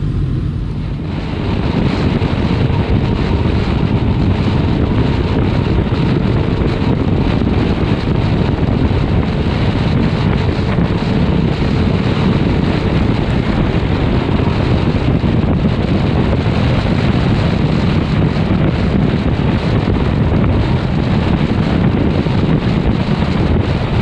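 Loud, steady wind rush on the microphone of a sport motorcycle riding at highway speed, starting about a second in.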